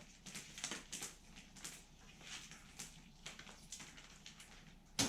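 Power cord being handled and untangled: irregular rustles and light clicks, with a sharper click near the end.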